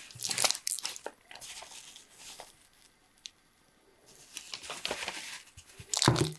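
Hands handling a folded toy pram's aluminium tube frame and nylon fabric close to the microphone: rustling and scraping in several short spells, loudest about six seconds in.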